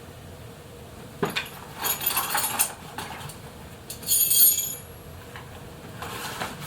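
Small metal hand tools from an e-bike's included tool kit (screwdriver, Allen keys, wrenches) clinking and jangling as they are handled, with a knock about a second in and the loudest metallic clatter about four seconds in.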